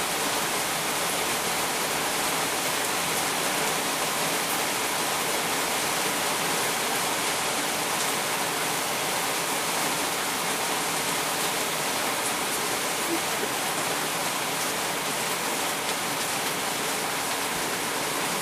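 Falling water making a steady, even rush.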